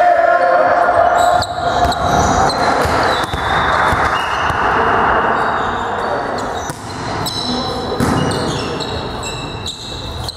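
Indoor volleyball play: sneakers squeaking on the sports hall floor, sharp slaps of the ball being struck, and players calling out.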